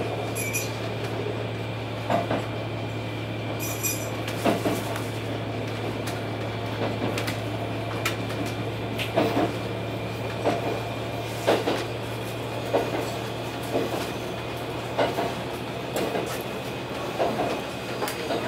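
Setsugekka ET122 diesel railcar running along the line, seen from the cab: a steady low engine drone, with the wheels clacking over rail joints about once a second.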